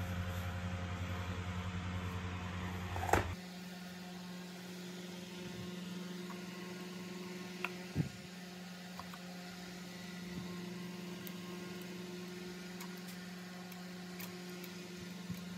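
Steady low electrical hum over a faint hiss. A sharp click about three seconds in, where the lowest part of the hum cuts out, and a couple of faint clicks around eight seconds.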